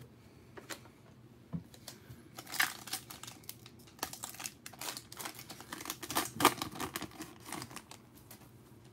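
Crinkling and tearing of a 2020 Prizm football hobby pack's wrapper being ripped open by hand: an irregular run of crackles that starts about two seconds in and is loudest about two-thirds through.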